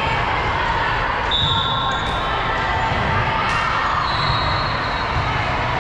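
Volleyball gym ambience: a ball bouncing on the hardwood floor and voices chattering and echoing around the large hall, with two brief high-pitched tones, about a second and a half in and again around four seconds.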